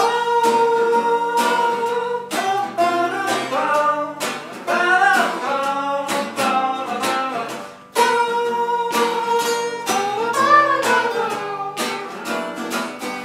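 Two acoustic guitars plucked together under a man singing. He holds a long note at the start and again about eight seconds in, with the melody rising and falling in between.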